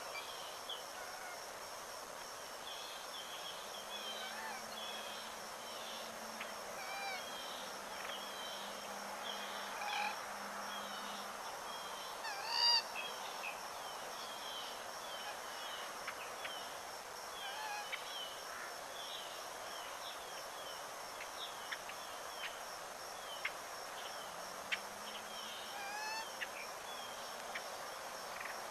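Steady high-pitched insect drone with many short bird chirps and calls scattered throughout, and one louder call about halfway through.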